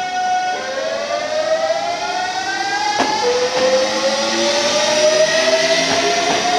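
Hankyu 8000-series train (set 8002F) pulling away, its VVVF inverter and traction motors whining. A steady stack of tones gives way about half a second in to tones that climb in pitch, then step down and climb again about three seconds in as the train gathers speed. The set is known as an unusual-sounding unit.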